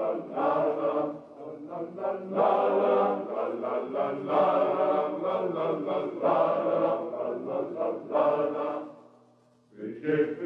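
Choir singing a traditional Pyrenean song in sustained phrases, pausing briefly near the end before the next phrase begins.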